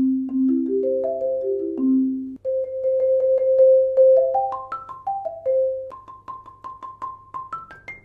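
Marimba played softly with 0gravity Percussion Jupiter 4 medium-soft mallets. Held rolls step upward from the middle register, broken by short scale runs up and down, and end on rolls in the upper range.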